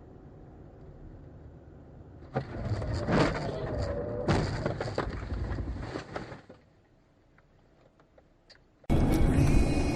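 Low rumble of a car driving, then, about two and a half seconds in, a sudden car collision: a series of bangs and crunching knocks lasting about four seconds, with a wavering tone under it. It dies away to near silence, and loud music starts abruptly near the end.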